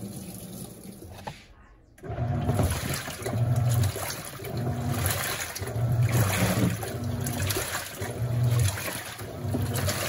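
Panasonic NA-F140B6 top-loading washing machine in its first rinse. Water runs into the drum, then after about two seconds the wash motor starts agitating in pulses about once a second, swishing the water and clothes.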